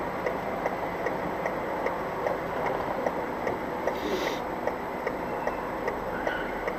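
An even series of light ticks over steady background noise, with a short hiss about four seconds in.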